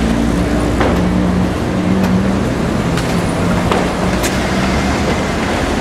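Steady street traffic noise, with a vehicle engine running close by, and a few light clicks over it.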